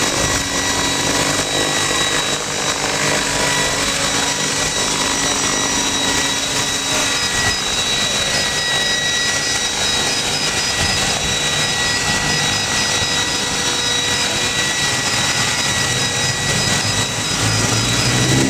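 Electric RC helicopter's motor and rotor whining as it comes down and lands, over a steady rushing background; a low steady hum drops out about seven seconds in.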